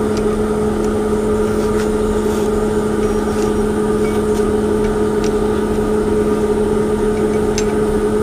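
A steady machine hum with one constant low tone and its octave, unchanging throughout, with a few faint light clicks.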